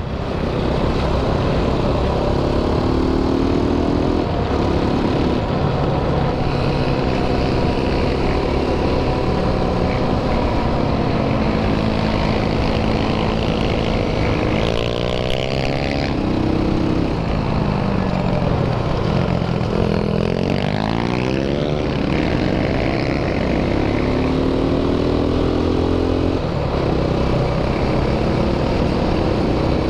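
Sport quad's engine running under way, its pitch rising and falling repeatedly as the throttle is opened and eased, with wind noise over it. A pit bike's engine runs alongside part of the way.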